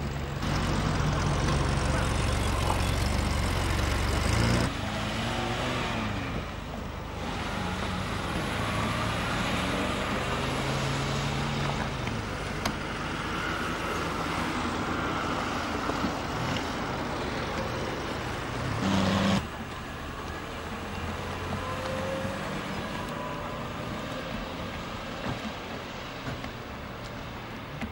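Classic cars, Vauxhall Cresta PAs among them, driving past one after another, their engines and tyres passing by. The sound is loudest in the first few seconds and changes abruptly about five seconds in and again about nineteen seconds in.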